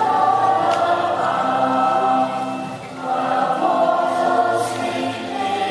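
Children singing together in chorus, a sung number with instrumental accompaniment, with a short break between phrases about halfway through.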